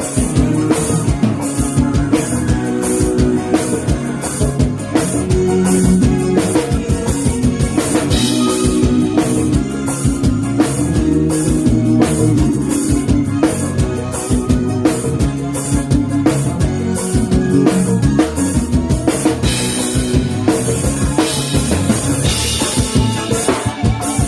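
Forró band playing an instrumental passage during a soundcheck: a drum kit with kick and snare keeps a fast, even beat under steady bass and melody lines, with no singing.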